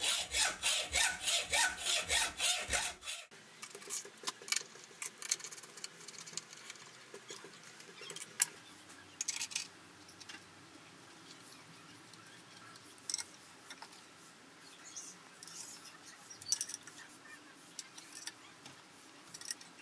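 Hacksaw cutting through a small steel bar, quick regular strokes that stop abruptly about three seconds in. Then light, scattered clicks and taps of a hex key and small steel parts being fitted.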